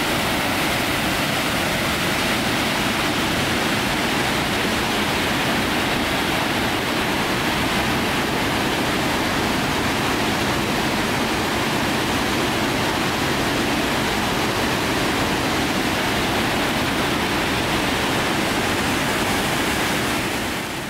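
Waterfall pouring over rock ledges: a steady, loud rush of falling water.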